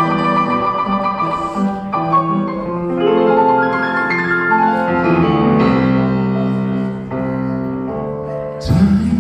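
Live piano playing held chords through the hall's PA. Near the end a sudden loud hit and a deep bass note come in as the band joins.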